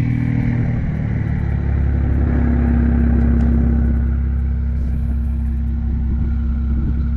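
BMW 335is N54 twin-turbo inline-six running through a straight-piped exhaust with no cats, resonator or muffler. Its pitch eases down over the first second and a half, then holds steady.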